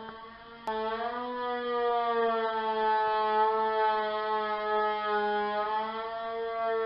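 Electric wood saw's motor whining at a steady high pitch. A sharp click comes less than a second in, after which the whine is louder and holds a nearly even pitch.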